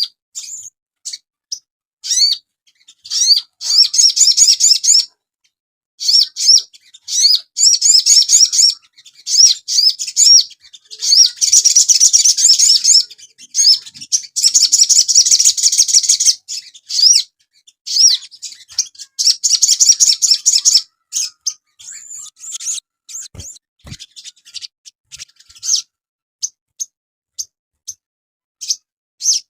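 Crimson sunbird (sogon) singing: rapid, high-pitched chirping twitters in phrases lasting a few seconds, thinning to scattered single chirps near the end.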